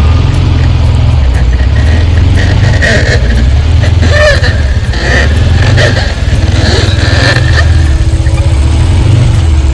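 ATV engine running while riding, its low note swelling and easing with the throttle.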